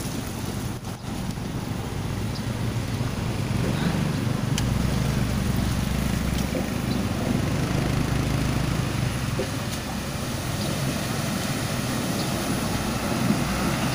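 Diesel engine of a heavy Hino tanker truck running at low speed as it approaches, its drone growing louder about four seconds in. Near the end it ploughs through the flooded road, water washing around its tyres.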